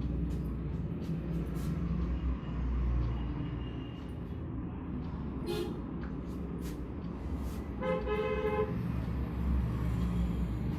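Steady low rumble of road traffic, with a vehicle horn honking once for under a second about eight seconds in. A few sharp clicks come shortly before the horn.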